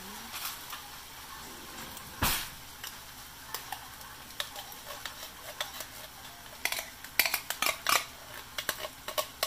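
Black beans and vegetables sizzling in a frying pan, with one loud knock about two seconds in. Near the end comes a quick run of sharp metal clicks and scrapes: a spoon knocking the last beans out of a tin can over the pan.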